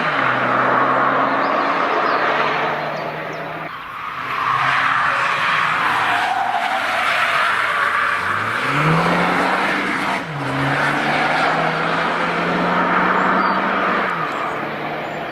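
BMW M135i engine pulling hard on track, with steady revs that drop off about four seconds in, climb again near nine seconds, dip briefly around ten seconds as if on a gear change, then hold steady, over constant tyre and road noise.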